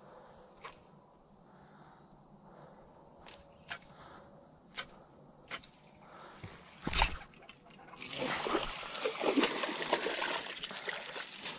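A hooked fish thrashing and splashing at the water's surface as it is reeled in to the bank, starting about eight seconds in after a single sharp knock. Before that only a steady high chirring of insects, broken by a few scattered sharp ticks.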